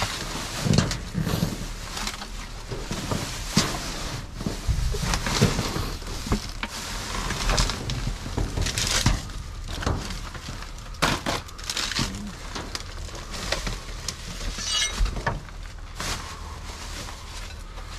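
Trash being rummaged by hand in a dumpster: plastic bags, cardboard boxes and packaged goods rustling and crinkling, with irregular knocks and clatters of hard items being moved.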